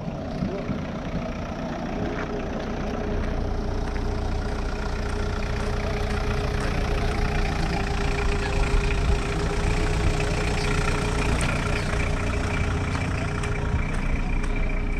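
A car engine idling steadily, a low rumble with a steady whine over it that grows a little louder over the first few seconds.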